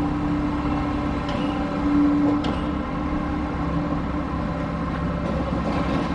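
Scrap-yard material handler's diesel engine and hydraulics running with a steady hum as it works its grapple claw over the truck bed, with a couple of faint knocks.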